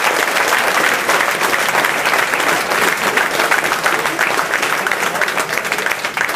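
Small crowd of spectators applauding and cheering, a dense patter of clapping that eases off a little near the end.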